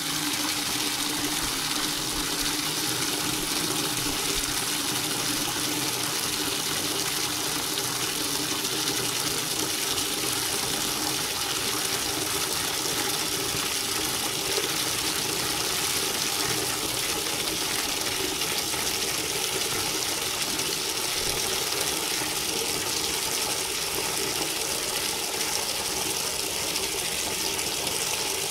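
Water from a bathroom tap pouring steadily into a plastic bucket, an even splashing gush.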